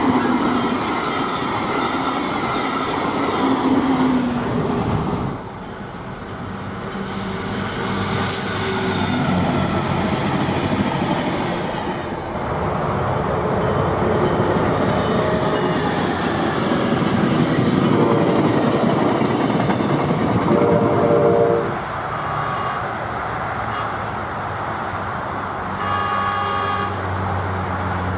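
Diesel passenger trains running past at speed, steady loud rail and engine noise in several separate passes. A locomotive air horn sounds about three-quarters of the way through and again near the end.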